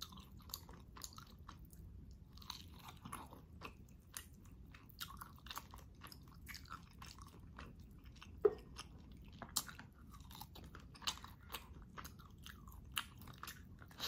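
Chewing and gnawing meat off boiled beef rib and neck bones, close to the microphone, with scattered short crunchy clicks; a sharper click comes about eight and a half seconds in.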